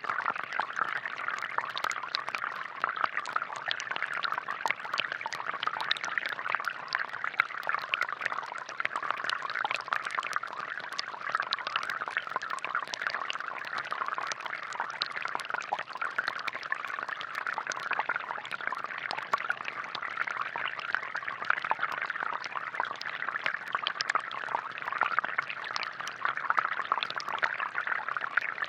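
Water from a homemade plastic-bottle air-pressure fountain splashing and trickling steadily, with many small spatters and drips.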